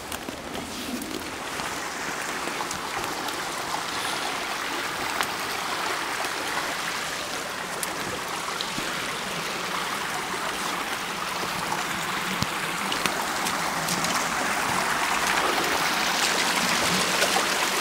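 Shallow woodland stream running over rocks and small cascades, a steady rushing of water that grows gradually louder.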